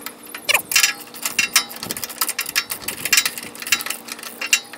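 Ratchet wrench clicking in quick, uneven strokes as a bolt is tightened down.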